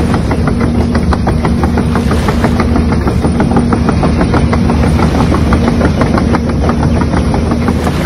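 Radio-controlled model excavator running: a steady motor hum with rapid, even ticking, about five ticks a second.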